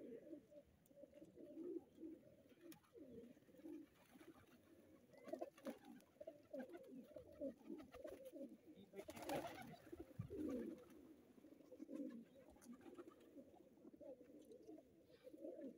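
A flock of domestic pigeons cooing, many short low coos overlapping without pause. A brief rustling noise comes about nine seconds in.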